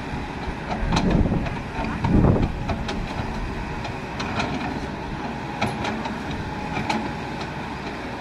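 Kobelco SK200 hydraulic excavator's diesel engine running steadily as it digs in a muddy riverbed, with scattered sharp clanks. Two louder low surges come about one and two seconds in.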